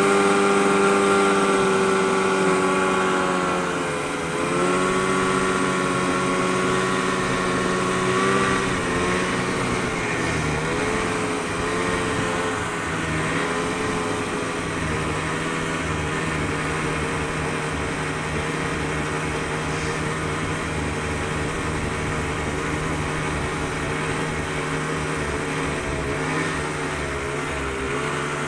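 Snowmobile engine running under way. Its note dips briefly about four seconds in, wavers with throttle changes around ten to fourteen seconds in, then holds steady a little lower.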